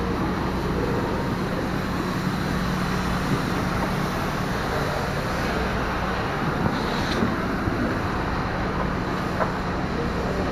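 An engine running at a steady speed: an even, low drone with a few faint ticks over it.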